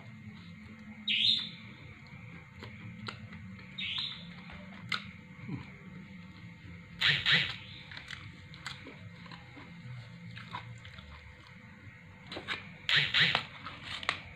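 Crisp home-baked pizza crust being bitten and chewed close to the microphone: short, sharp crunches in bursts, the loudest about halfway through and again near the end.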